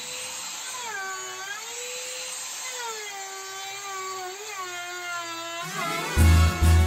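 Handheld electric trim router running at high speed, a high whine whose pitch sags and recovers several times as the bit is loaded in the wood. Music with a heavy bass beat cuts in near the end.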